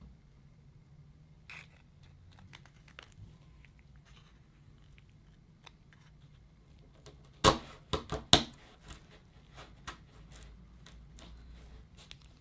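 Small handling sounds: a wooden stir stick scraping and tapping in plastic plugs and a plastic mixing cup, with a quick run of sharp plastic clicks a little past the middle.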